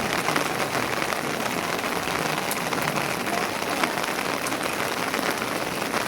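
Steady rain falling on a surface: an even hiss with scattered small clicks.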